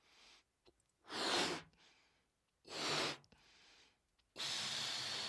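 A person breathing audibly: two short, loud breaths about a second and a half apart, then a longer one near the end, like heavy sighs.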